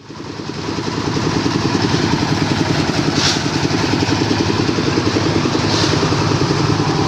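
An engine on concrete-pouring machinery runs steadily with a fast, even beat, coming up to full level over the first second.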